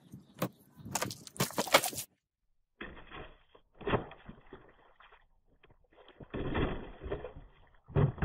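Knife blade slashing through water-filled plastic soda bottles: sharp crackles of the plastic being cut, and water splashing out onto concrete, in a few separate bursts.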